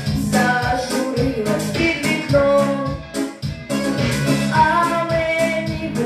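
A young girl singing a pop song into a microphone over instrumental accompaniment, in held and sliding notes, with a short break between phrases about halfway through.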